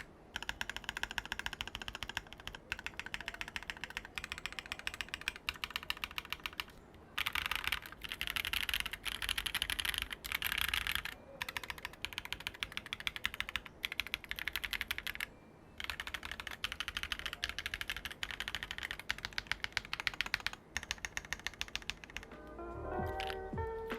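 Rapid typing on a mechanical keyboard with a brass plate, the keystrokes coming in several quick runs separated by short pauses. Background music comes in near the end.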